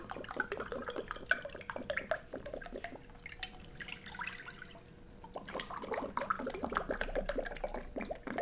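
Water poured from a drinking glass into a wide, empty non-stick pan, splashing and trickling on the pan's base.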